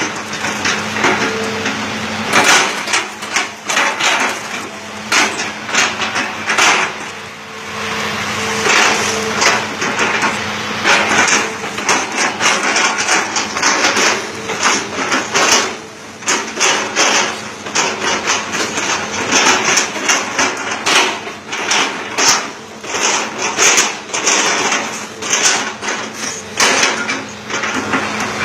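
Hitachi ZX200-5G excavator chopping up an oil palm trunk with its bucket: many sharp cracking and crunching impacts of wood in quick succession, over the steady hum of the machine.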